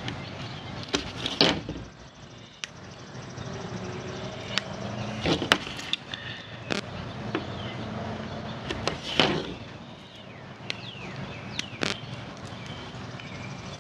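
Scattered clicks and light knocks of hands working heavy battery cable and tools on a workbench, a handful of sharper taps spread irregularly through the stretch.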